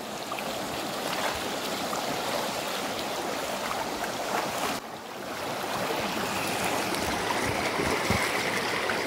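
Fast, shallow, muddy river rushing over stones: a steady wash of water. It dips briefly about halfway through.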